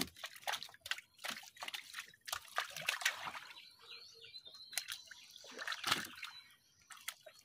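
Water splashing, sloshing and dripping as a fine nylon gill net with fish caught in it is hauled by hand out of floodwater: a run of irregular small splashes and trickles.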